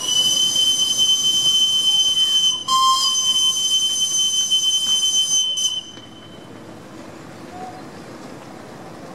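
Steam whistle of a Romulus-class miniature steam locomotive blown twice: a high-pitched blast of about two and a half seconds, a brief break, then a second blast of about three seconds that cuts off.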